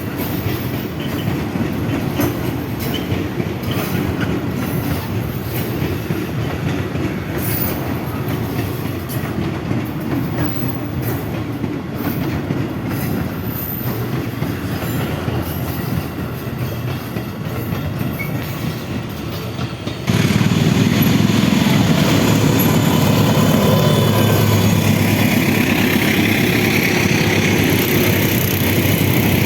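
A train running on the tracks: a steady, loud running noise that suddenly jumps louder about two-thirds of the way through.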